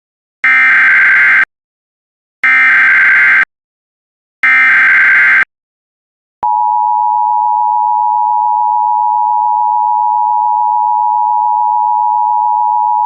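Emergency Alert System tones: three one-second bursts of the SAME digital header, a harsh warbling data tone, each separated by a second of silence, then about six and a half seconds in the steady two-tone attention signal (853 and 960 Hz) starts and holds.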